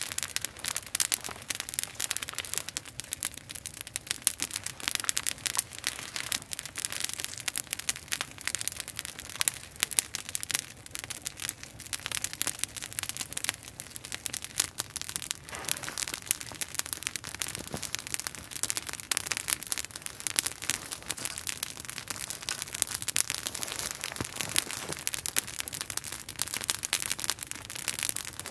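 Small open wood campfire crackling, with many sharp pops close together.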